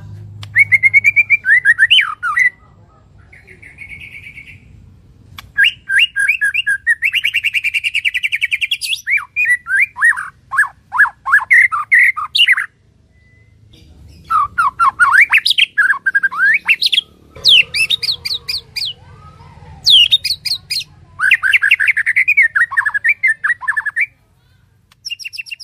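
Black-naped oriole calling close by: loud bursts of rapid, harsh chirps, some notes falling sharply in pitch, repeated with short pauses between bursts.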